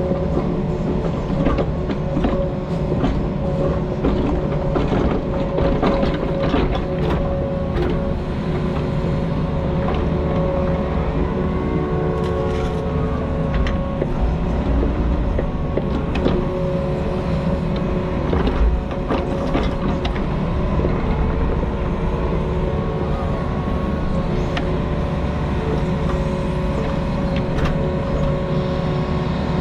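Diesel engine of compact earthmoving equipment running steadily while it works, with intermittent clanks and knocks.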